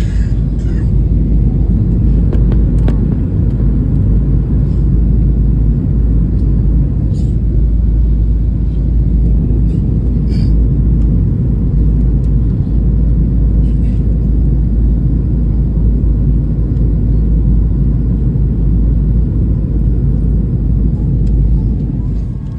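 Steady low drone of an airliner in flight heard inside the passenger cabin: engine and airflow noise, with a few faint ticks.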